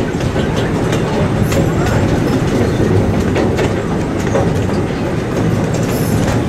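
Amusement park ride train running slowly along its track, heard from a passenger car: a steady rumble of wheels on the rails with occasional clicks.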